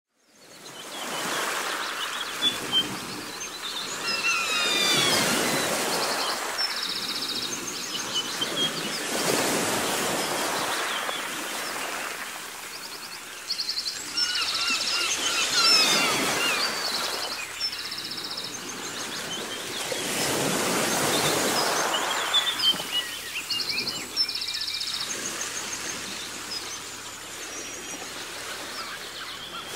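Waves washing in, swelling and fading about every five or six seconds, with birds chirping and giving quick trilling calls over them.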